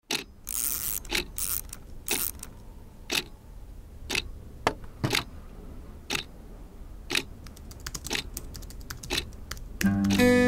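A clock ticking about once a second, with a few softer clicks in between. Acoustic guitar music comes in near the end.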